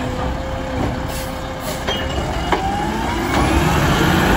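Mack LR garbage truck with a Labrie Automizer arm setting a cart back down: a steady hydraulic whine with a few sharp clunks. Past the halfway point the engine note rises as the truck accelerates away, getting louder near the end.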